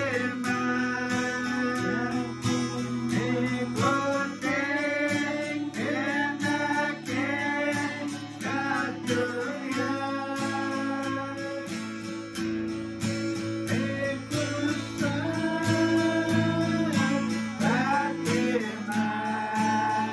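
Two acoustic guitars playing a Cree gospel tune together, strummed chords under a picked melody line.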